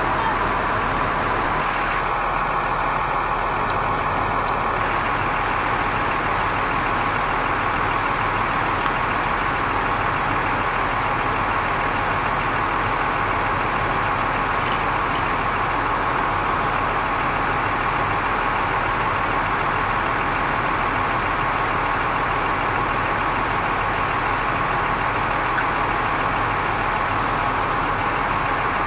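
Fire engine running steadily at a constant speed while pumping water to charged hose lines.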